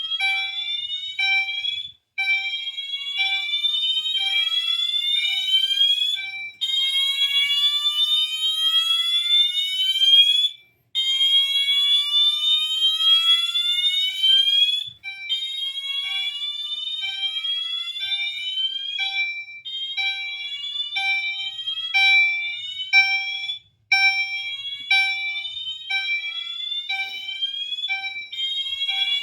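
Two fire alarm appliances sounding together. A Wheelock MT horn is on slow whoop: a rising tone that sweeps up over about four seconds and restarts after a short break. A second alarm is on continuous chime, a steady pulse about twice a second.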